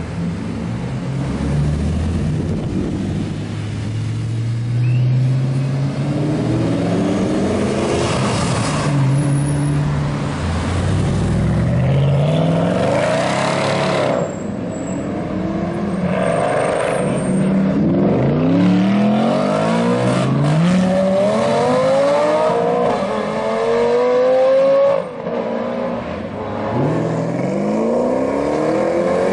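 High-performance car engines, among them an Audi R8 and a Mercedes CL63 AMG, accelerating hard one after another. The pitch climbs steeply again and again and drops back at each gear change.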